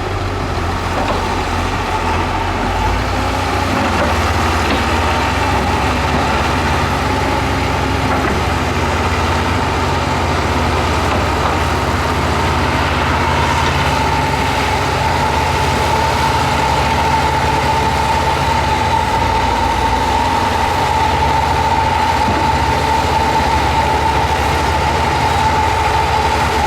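Heavy diesel earthmoving machinery running steadily, with a steady high-pitched whine joining in about halfway through.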